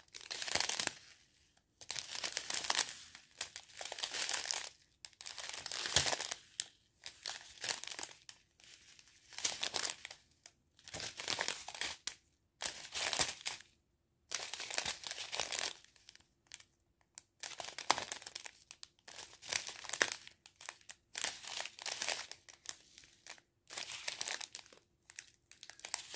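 Small plastic sachets of diamond painting drills crinkling as they are handled and turned over, in irregular bursts of rustling with short pauses between.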